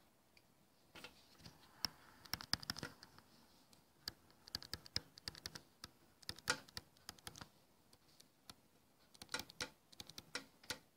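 Stylus tapping and scraping on a tablet's glass screen as an equation is handwritten: light, irregular clicks in three loose bursts with short gaps between.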